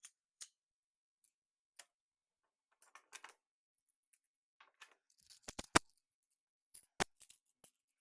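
Plastic magnetic building tiles clicking and clacking as triangle pieces are handled and snapped onto a structure. The clicks are scattered and light, with the two sharpest snaps a little past the middle and about a second later.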